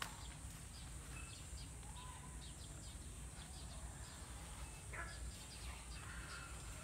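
Dry maize stalks and leaves rustling and crackling as they are pulled and handled, with a few bird calls, one falling call about five seconds in.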